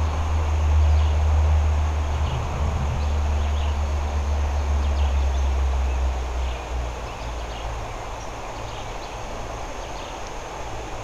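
Outdoor riverbank ambience: a steady hiss with faint scattered high chirps, under a low rumble that fades away about six to seven seconds in.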